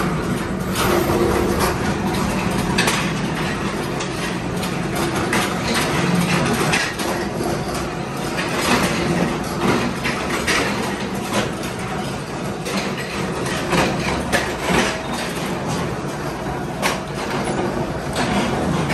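Metal-working factory machinery: flywheel power presses run with a steady hum, under irregular metallic clanks and knocks of steel parts being pressed and handled.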